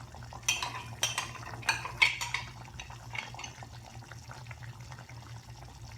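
Metal spoon clinking against a cooking pan while tomato sauce is stirred: a few sharp clinks in the first two seconds, then softer scraping. A steady low hum runs underneath.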